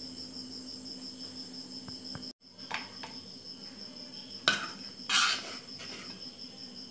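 A serving spoon clinks and scrapes against metal dishes a few times, loudest about four and a half and five seconds in. Under it run the steady, evenly pulsing high chirping of crickets and a low hum. The sound drops out briefly just after two seconds in.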